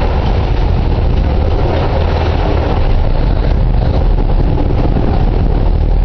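A sportfishing boat's engines running steadily: a loud, low, continuous drone with a rushing hiss over it.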